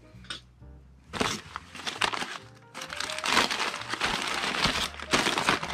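Plastic packaging bag crinkling and crackling as it is handled and opened, starting about a second in and going on in loud bursts. Faint background guitar music at the start.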